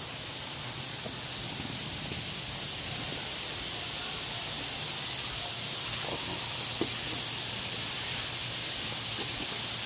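A steady high-pitched hiss that grows slightly louder over the span, with a few faint ticks in the middle.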